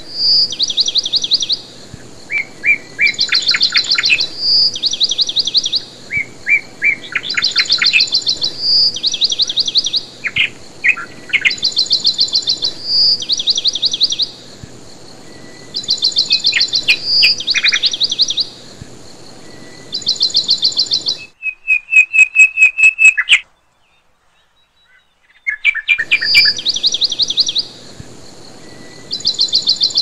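Songbirds chirping and trilling in short phrases that repeat every few seconds, with a brief gap of silence about three-quarters of the way through.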